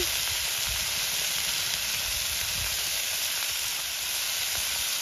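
Pieces of pork meat sizzling steadily in oil in a black wok over a wood campfire.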